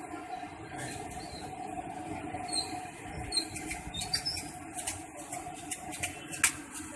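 Bhajiyas deep-frying in a kadhai of hot oil, with a steady sizzle. A perforated metal ladle scrapes and clinks against the iron pan many times, with sharp clicks clustered in the second half and a few brief high squeaks.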